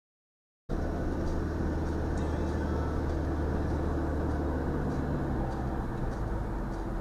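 Cabin noise of a moving 2019 Subaru Ascent: a steady low engine and road drone, starting abruptly under a second in, with faint light ticks scattered through it.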